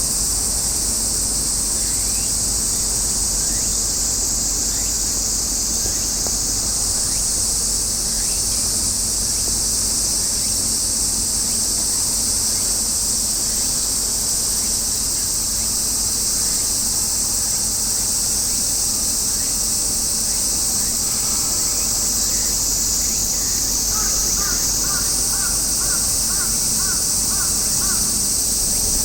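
A steady, loud chorus of cicadas shrilling. Near the end a bird calls in a quick series of short repeated notes.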